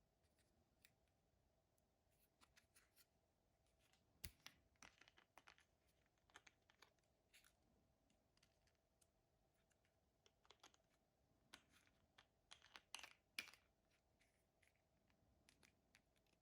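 Near silence broken by faint scattered clicks and rustles, the loudest a sharp click about four seconds in and a cluster around thirteen seconds, over a faint steady hum.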